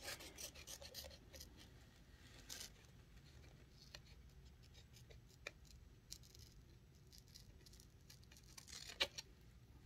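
Faint, scattered snips of small scissors cutting through wax paper and a nail polish strip, trimming along its curve.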